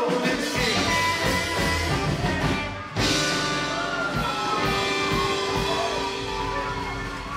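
Live rockabilly band playing: electric and acoustic guitars, upright bass, drum kit and keyboard, with a sudden change in the music about three seconds in.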